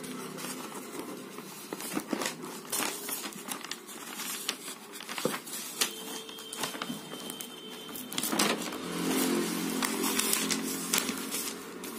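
Paper notebook being handled and its pages turned: repeated rustles, crackles and scrapes of paper, over a steady low hum that fades in the middle and returns near the end.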